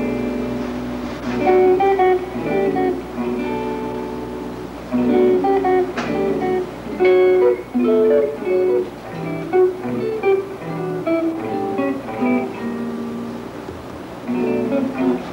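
Archtop hollow-body electric guitar played in phrases of plucked chords and single-note lines, with short pauses between phrases.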